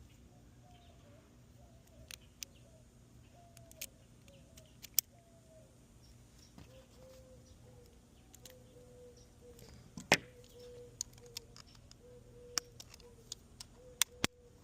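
Small metal clicks and taps of Kwikset lock parts being handled and fitted back together, scattered and sparse, with the sharpest click about ten seconds in. A faint, thin, repeating tone sounds in the background.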